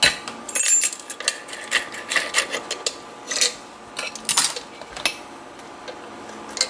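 Small metal clicks and clinks of a brass padlock and its parts being handled, with a brief high jingle about half a second in.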